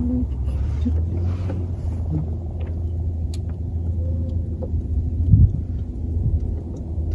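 Steady low rumble of a boat engine running, with a couple of soft knocks about five seconds in.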